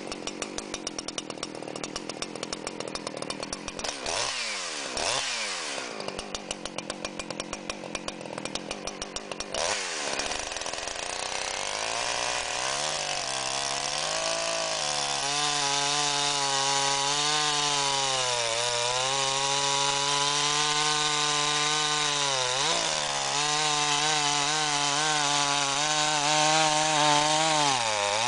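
A muffler-modified Jonsered 2159, a 59 cc two-stroke chainsaw, idles unevenly for about ten seconds with a few quick blips of throttle. It then goes to full throttle and cuts through an 18-inch oak log, its engine note sagging briefly under load a few times.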